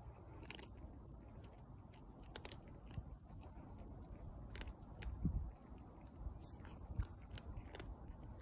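Calico cat crunching dry kibble, a series of irregular sharp crunches as it picks up pieces and chews.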